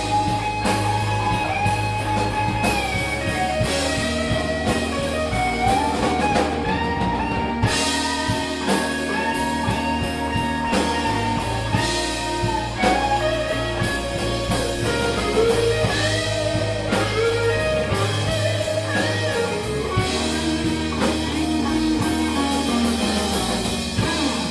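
Live blues band playing an instrumental passage: guitar, bass and drum kit, with a lead line of sliding, bent notes over a steady groove.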